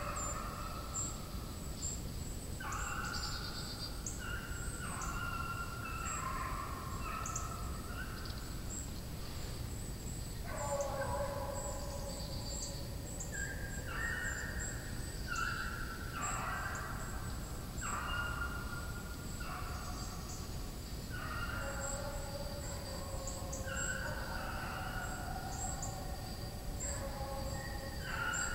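A pack of deer-chasing hounds baying on a running chase: long, drawn-out bawls from several dogs overlapping one another, with short pauses between bouts.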